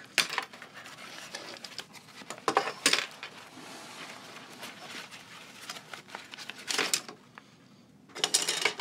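A plastic embroidery hoop being unclipped and taken off an embroidery machine, with a few sharp plastic clicks and clacks, and the stabilizer and glitter vinyl crinkling as the stitched piece is handled.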